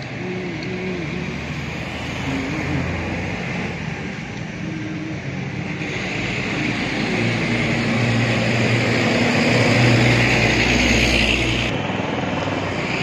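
A motor or engine running steadily, growing louder to about ten seconds in, then cutting off suddenly about twelve seconds in.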